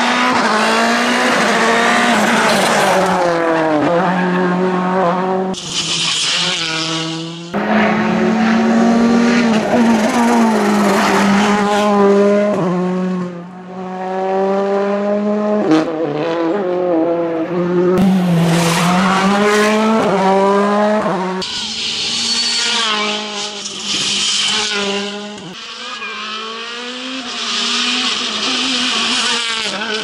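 Turbocharged four-cylinder World Rally cars at full speed on tarmac, one after another: engines revving up and dropping sharply through gear changes as each car brakes into and accelerates out of corners. Tyres squeal at times.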